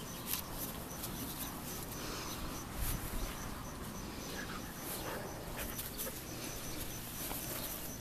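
Standard poodle puppy moving about in the grass close to the microphone: rustling with scattered small clicks and a soft thump about three seconds in.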